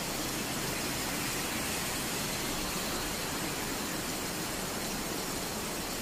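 Heavy rain pouring down on a street and pavement, a steady, even hiss.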